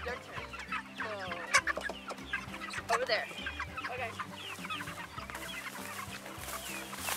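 White broiler chickens in a pasture pen clucking and cheeping in many short, quick calls. A couple of short sharp sounds come about one and a half and three seconds in.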